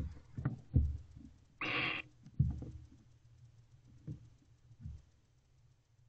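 Barn owl shifting about on the floor of a wooden nest box: a series of dull thumps and scrapes from its feet on the wood and shavings, with one short hissing burst a little under two seconds in.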